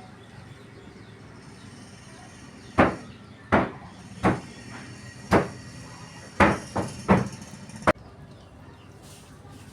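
A series of about eight sharp knocks on something hard, irregularly spaced, between about three and eight seconds in, the last two close together.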